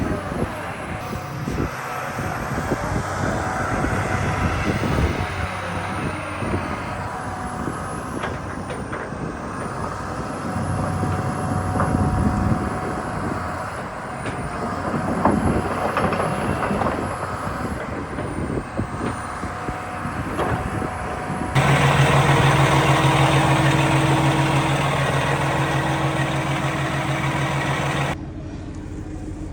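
John Deere 350D excavator's 6090H diesel engine running, with scattered knocks and clanks. About two-thirds of the way through, the sound cuts abruptly to a steadier, louder engine note, and it changes abruptly again near the end.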